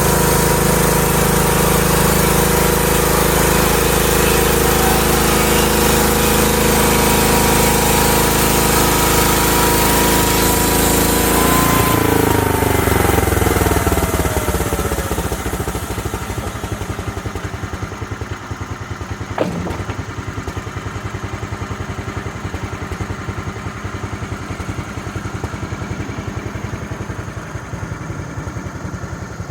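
Homemade sawmill's engine running hard while the blade cuts black locust. About twelve seconds in its pitch falls as it slows, and it settles to a steady idle. One sharp knock comes partway through the idle.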